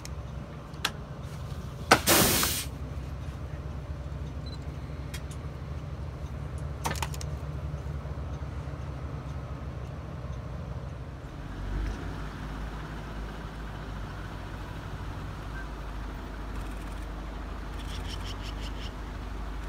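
Vehicle engine idling with a steady low hum, heard from inside the vehicle. About two seconds in there is a short, loud burst of hiss-like noise, and the hum shifts in tone about twelve seconds in.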